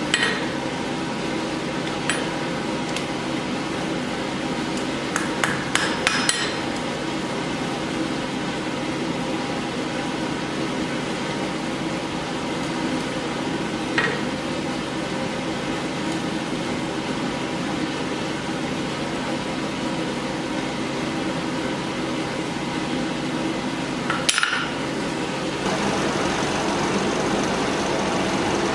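A few sparse hammer taps on a steel anvil while straightening a hand-forged knife blade: single taps, a quick cluster of several a few seconds in, and two more later. A steady hum runs underneath and grows louder near the end.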